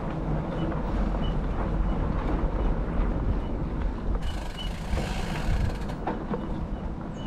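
Riding noise from a gravel bike on a dirt singletrack: steady wind rumble on the bike-mounted microphone, with tyres rolling over the dirt and small clicks and rattles from the bike.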